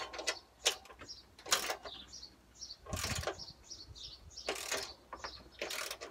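Socket ratchet wrench worked in short strokes, tightening the 13 mm bolts on a tractor seat bracket: about five separate ratcheting bursts, unevenly spaced.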